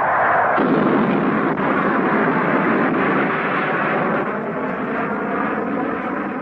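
An F-4 Phantom jet roars low overhead. About half a second in, this gives way abruptly to the deep rumble of a bomb explosion, which slowly dies down.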